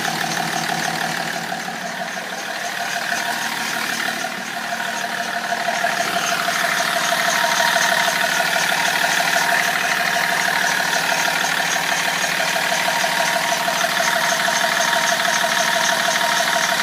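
BMW 330d E46's straight-six diesel idling steadily with its engine sound-insulation cover removed, a little louder from about six seconds in.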